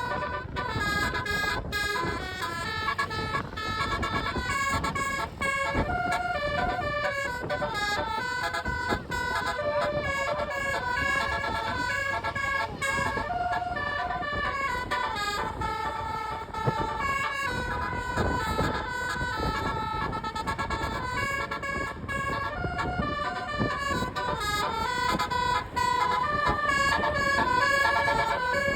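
Basuri telolet horn, a multi-tone musical vehicle horn, playing a tune of held notes that step up and down without a break, over a low rumble.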